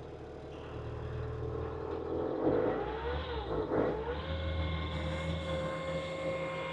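Diesel engine of a machine stuck in mud, working hard as it tries to drive out. The pitch wavers and the sound grows louder for a couple of seconds, then settles into a steady whine under load.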